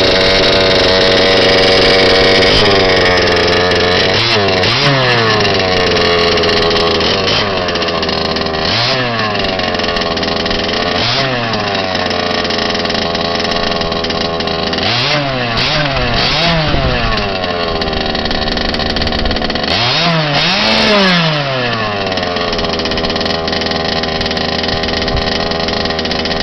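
Small two-stroke petrol engine of a Reeley Carbon Fighter RC buggy, running through an HPI Baja 5B loud pipe. It starts at a steady higher speed and drops to idle. It is then revved in short throttle blips, with a quick run of blips about two-thirds in and a longer double rev near the end.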